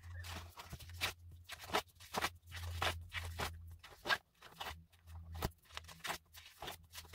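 Scrapbook-paper pages of a disc-bound journal being flipped one after another: a string of short paper rustles and flicks, over a faint hum.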